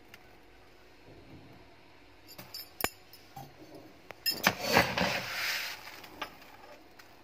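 Dry rice grains rattling and pouring in a steel tumbler as it is scooped full, after a few sharp clinks of the metal cup. The rush of grains is the loudest part, lasting about a second and a half past the middle.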